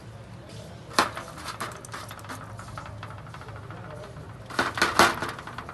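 A few sharp metallic clinks and knocks, one about a second in and a louder cluster near the end, over a steady low hum.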